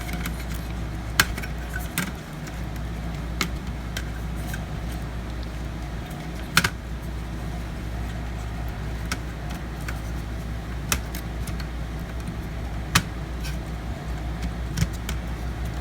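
Sharp, scattered clicks and light taps of small laptop parts being handled during a drive swap, about six in all and spread a second or more apart, over a steady low hum.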